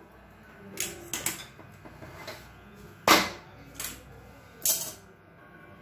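A steel cooking pot being handled on a gas stove, clanking against the metal pan supports: several sharp knocks at uneven intervals, the loudest about three seconds in.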